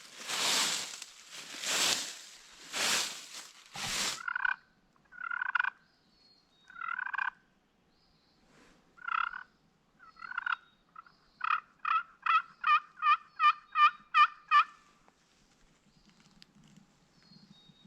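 Four loud rustling scratches in dry leaves, then wild turkey calling: a few scattered calls followed by a run of about ten evenly spaced yelps, loud and close. A tom's gobble is among the calls.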